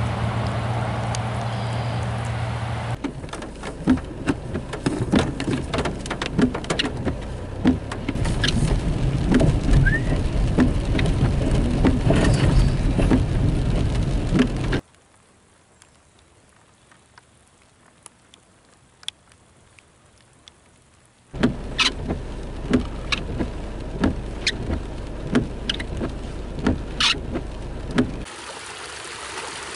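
Raindrops tapping on a car's windshield and roof over the low noise of the car driving on a wet road, heard in several separate takes. For about six seconds in the middle the sound drops to a faint hiss with a few scattered taps.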